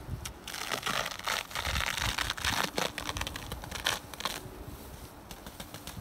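Inner cover of a wooden beehive being pried and lifted off, its bee-glue seal crackling and tearing in a dense run of sharp cracks from about half a second in until about four and a half seconds.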